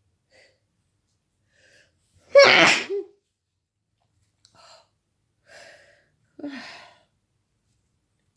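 A person sneezing explosively once, about two seconds in, in the middle of a sneezing fit while ill. Faint breaths come around it, and a second, softer burst follows about four seconds later.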